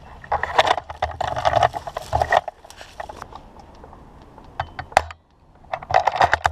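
Rustling movement noise for about two seconds, then scattered sharp clicks: a few single clicks around four to five seconds in and a quick cluster of them near the end.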